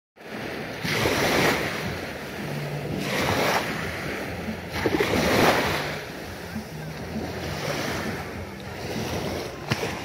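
Small sea waves washing up over bare feet at the water's edge, the surf surging three times in the first six seconds and then washing more gently.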